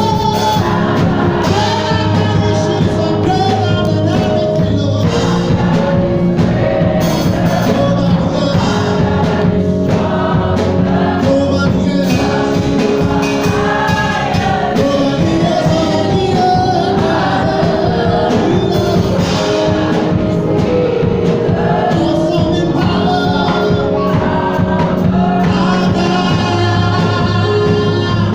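Gospel music: a choir singing over instrumental accompaniment with held bass notes, continuous and loud.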